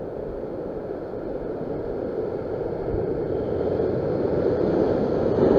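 Ocean swell surging and breaking against a rock ledge: a steady rushing wash of surf that grows gradually louder toward the end.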